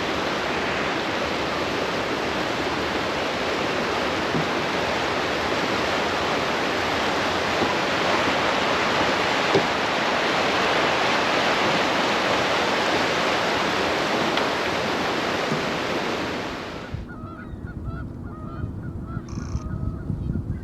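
Steady rush of fast-flowing water that cuts off abruptly about three quarters of the way through. After it come faint honking calls of geese over a low wind rumble.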